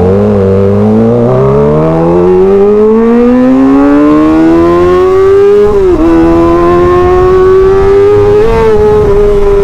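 Kawasaki ZX-25R 250 cc inline-four through an SC Project titanium exhaust, very loud under hard acceleration. Its pitch rises steadily for about six seconds, drops sharply at an upshift, then climbs slowly again.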